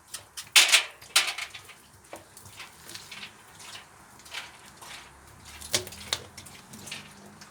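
A series of sharp clattering knocks, the loudest two about half a second apart near the start, followed by lighter clicks and taps. A faint low hum sets in a little after the middle and stops shortly before the end.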